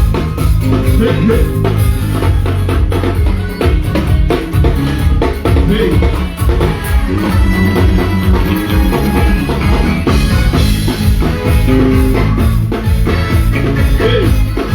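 Live band playing a loud, steady-beat number, with drum kit, bass and guitar, during a sound check.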